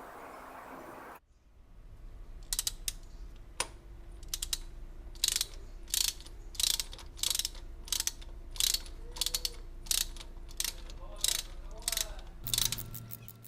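Socket ratchet clicking in short repeated strokes while tightening a spark plug, about one to two click groups a second.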